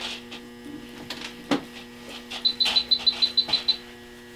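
Steady electrical hum of operating-room equipment, with a quick run of about ten short high electronic beeps a little past halfway and a few sharp clicks of metal surgical instruments during suturing.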